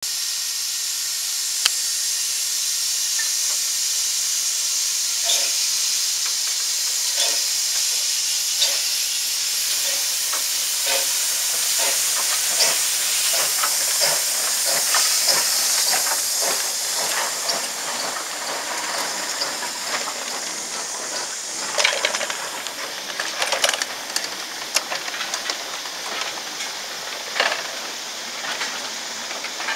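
Pannier tank steam locomotive (GWR 1366 class No. 1369) pulling away with a goods train: a loud steady hiss of steam with exhaust beats that quicken as it gets under way. In the second half the hiss fades and the goods vans and brake van clank and clatter past over the rail joints.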